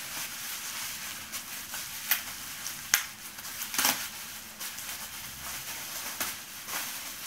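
Rustling and crinkling of packaging being unwrapped from the resin lower legs of a ball-jointed doll, with several sharp crackles, the loudest about three seconds in.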